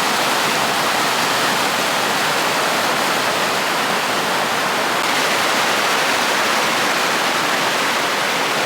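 Steady rushing of flowing water from a stream, an even hiss with no breaks or changes.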